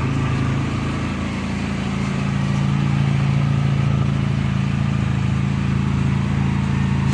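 Ford Mustang engine idling steadily, now running after the faulty relay behind its no-crank, no-start fault was replaced. It gets a little louder about two and a half seconds in.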